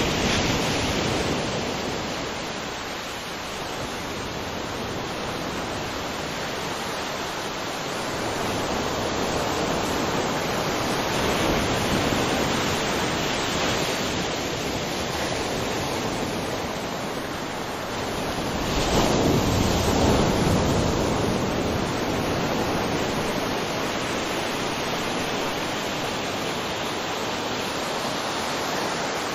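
Ocean waves: a steady rush of surf that swells and recedes slowly, with the biggest surge about nineteen seconds in.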